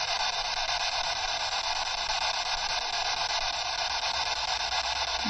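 Steady hiss of radio static from a small portable radio with its antenna out, tuned to no station.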